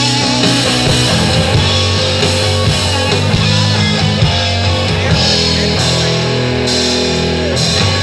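Live rock band playing an instrumental passage between sung verses: guitars and a drum kit at a steady, loud level.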